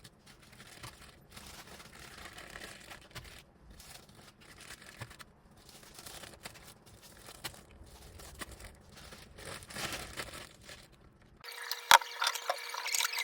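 Irregular crinkling and rustling of plastic packaging being handled. Near the end the sound changes abruptly to a steady faint hum with a few sharp clicks, the loudest a single knock.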